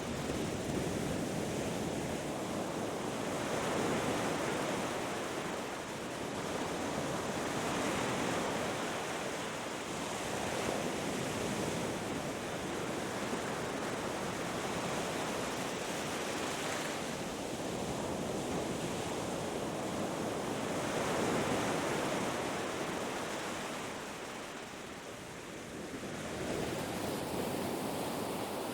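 Ocean surf: waves breaking and washing up a beach in a continuous rushing wash that swells and eases every few seconds, dipping briefly near the end.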